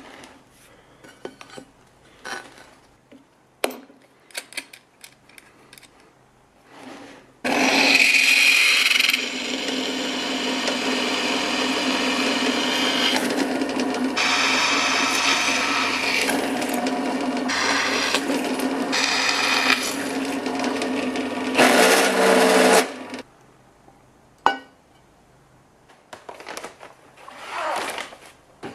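Bench pillar drill running and drilling 5 mm fixing holes through a steel plate for about fifteen seconds, a steady motor tone under the cutting noise, louder as it starts and again near the end. Light clicks and handling knocks before and after.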